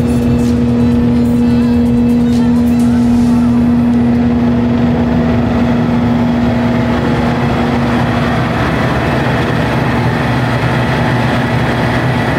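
CLAAS Jaguar 960 self-propelled forage harvester running while standing, heard up close: a loud, steady machine drone with a strong held tone that drops away about two-thirds of the way through.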